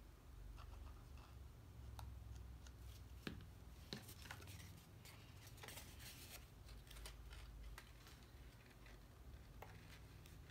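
Faint handling of cardstock pieces while glue goes on the tabs: a few light clicks and taps, then scattered soft scratchy rustles of paper.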